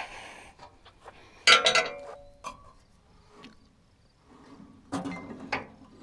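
Metal tools and parts clinking and knocking on a portable band sawmill's steel drive assembly during a drive-belt change. The loudest is a single ringing clink about a second and a half in, with a few lighter knocks near the end.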